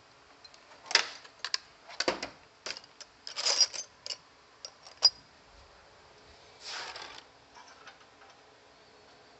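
Drill bits being rummaged through: a run of sharp metallic clicks and clatters, then about a second of rustling scrape.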